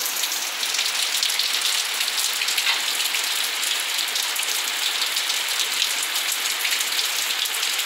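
Heavy rain falling steadily, a dense patter of drops close by.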